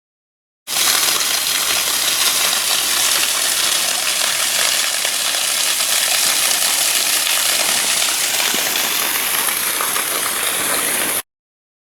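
A small waterfall splashing into a rock pool: a steady, hissing rush of falling water that starts suddenly about a second in and cuts off suddenly near the end.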